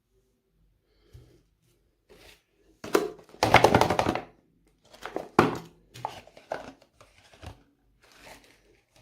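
Crunching and cracking of something crunchy being crushed, in seven short separate bursts, the loudest and longest about three to four seconds in.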